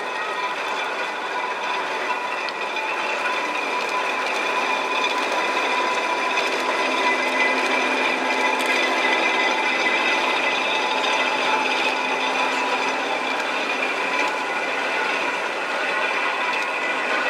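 Railway locomotive turntable rotating with an EF81 electric locomotive aboard: its drive mechanism runs with a steady mechanical grind and a high steady whine, getting a little louder after a few seconds.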